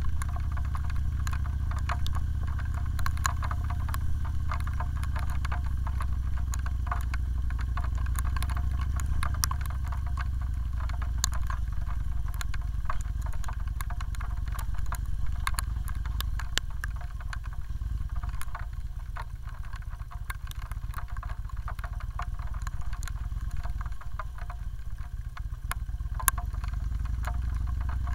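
Kawasaki Vulcan Nomad's V-twin engine running steadily as the motorcycle rides in the rain: a low rumble that eases for a while past the middle. Scattered sharp ticks of raindrops striking the windscreen run through it.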